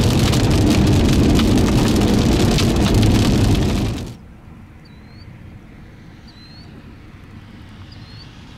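Rain and hail pelting the chase vehicle, a loud dense din of sharp hits, which cuts off suddenly about four seconds in. A faint steady hiss follows, with a few short, high chirps.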